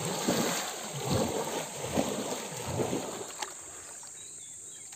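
Water splashed hard by hand in a shallow muddy pool: a run of irregular sloshing splashes that dies down after about three seconds.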